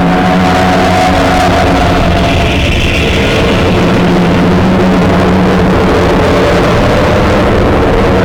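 Loud, harsh, distorted droning noise with a few steady tones underneath, running without a break: the garbled audio of a mock Emergency Alert System broadcast failure.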